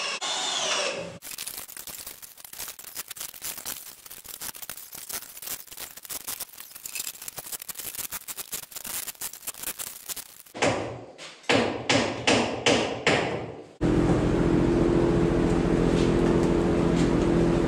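Hammer driving nails through insulation sheathing into wood wall framing: a fast run of faint ticks, then about six loud sharp blows. A steady hum takes over near the end.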